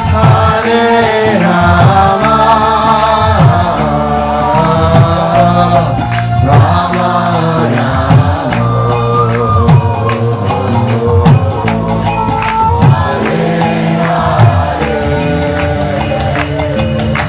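Kirtan music: a harmonium holding sustained chords, a mridanga drum beating a steady rhythm, and voices chanting a mantra in unison.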